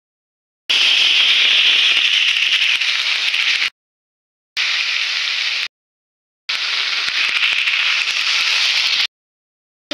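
Diced ash gourd sizzling and crackling loudly in hot oil in a kadai as it is tipped in and spread with a spatula. The sizzle comes in three stretches, each cut off abruptly by a short dead silence.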